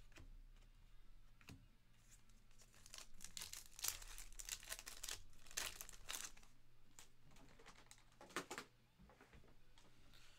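Foil wrapper of a trading-card pack crinkling and tearing as it is ripped open and peeled back from the cards, faint and crackly, busiest in the middle.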